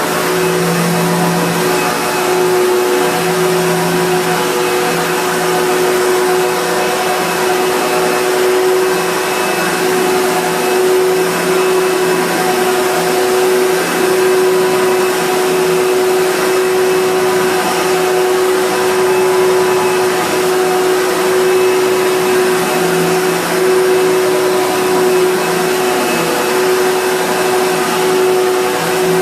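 Eureka The Boss Plus upright vacuum cleaner running steadily: a constant motor tone over an even rush of air.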